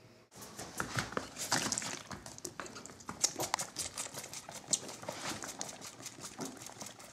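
A bottle-fed lamb suckling hard on a milk bottle's teat: rapid, irregular smacking and slurping clicks, with a few louder smacks.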